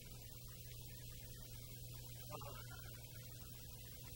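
Low, steady humming drone under faint tape hiss: a held low note of the background score.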